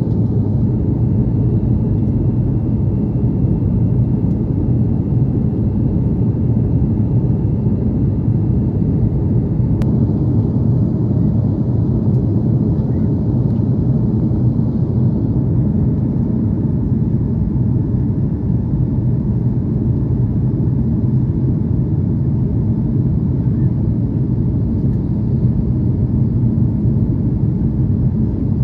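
Jet airliner cabin noise in flight: the steady low rumble of engines and airflow heard at a window seat. A faint thin high tone sounds for the first ten seconds, and there is a single brief click about ten seconds in.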